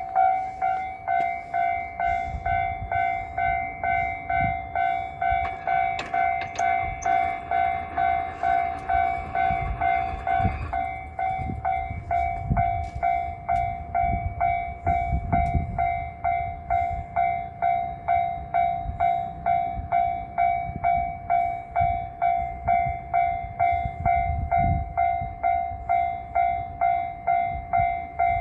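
Japanese railway level-crossing warning bell ringing in a fast, even ding-ding rhythm while a train passes over the crossing. The wheels rumble and clack over the rails, loudest in the first half and again briefly near the end.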